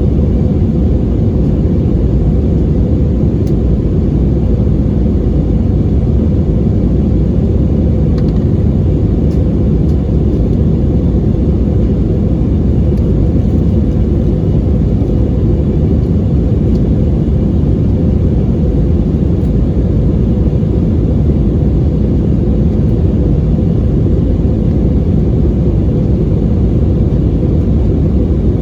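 Airbus A320's IAE V2500 jet engines and airflow heard from inside the passenger cabin: a loud, steady rumble with a constant droning tone over it.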